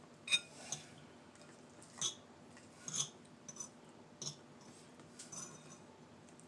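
A metal fork clinking and scraping against a ceramic bowl of noodles, while crackers are broken into it. The sounds are short, light clicks and clinks, about one a second, some with a brief ring.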